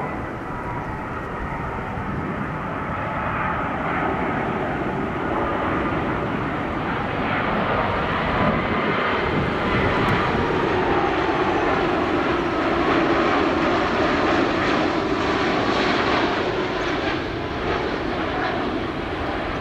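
Airbus A330-200 twin-engine jet airliner on landing approach flying past low: a steady rushing engine noise with a faint whine that grows louder, peaks past the middle and eases slightly near the end.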